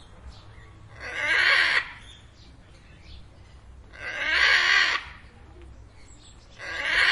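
Parrot screeching: three loud, harsh calls, each under a second long, about three seconds apart, the last starting near the end.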